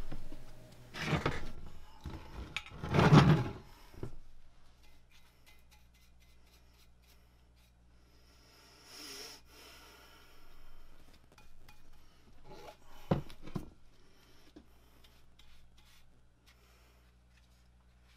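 Paintbrush strokes scrubbing enamel paint onto a cast-iron lathe tailstock casting, with two louder scratchy passes in the first four seconds, then softer brushing and a sharp knock about 13 seconds in.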